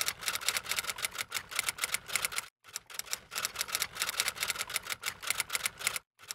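Typewriter keystroke sound effect: a rapid run of key clicks, with two short breaks, as text types itself out letter by letter.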